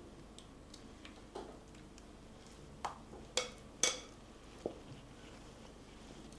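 A spoon scraping and tapping against a glazed ceramic bowl as a thick cream, egg and grated-cheese topping is scraped out of it: a handful of short, light clicks, the loudest a little past the middle.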